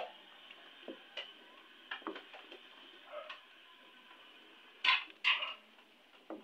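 Wooden spoon stirring a thick gelatin mixture in a metal pot, knocking and scraping against the pot in scattered short taps. Two louder sharp sounds come close together about five seconds in.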